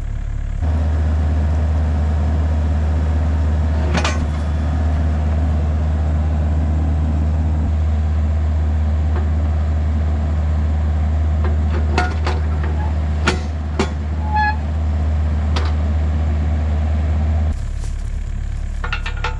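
Volvo EC35C mini excavator's diesel engine running steadily under work, its note louder from about half a second in until near the end, with a few sharp knocks and clanks from the machine at work.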